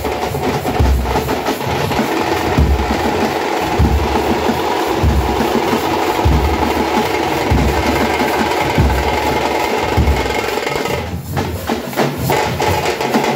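A group of tamate frame drums beaten with sticks in a fast, loud, dense rhythm, deep booms recurring about once a second. The playing eases briefly about eleven seconds in, then picks up again.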